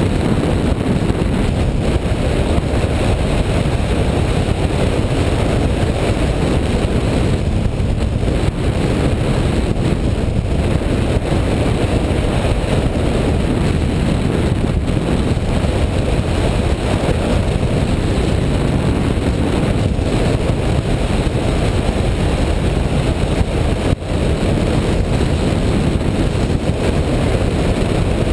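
Steady airflow rushing over the microphone of a camera mounted on a hang glider in flight, a loud, unbroken wind noise.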